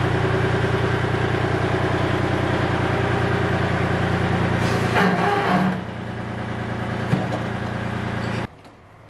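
Small tractor engine idling steadily while its pallet forks lower a load to the floor. The deep part of the engine note drops away about five seconds in, with a brief clunk then, and the sound stops abruptly near the end.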